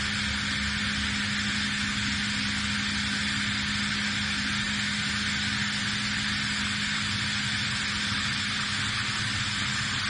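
CNC lathe finish-turning steel under flood coolant: a steady hiss from the cutting and coolant spray over a steady low machine hum.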